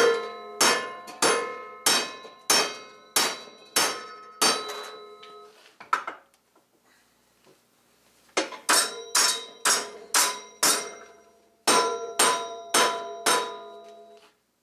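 Hammer striking flat steel stock held in a bench vise, bending it into L brackets: a steady run of sharp blows, each ringing on, about one and a half a second, then a pause and two shorter runs of blows.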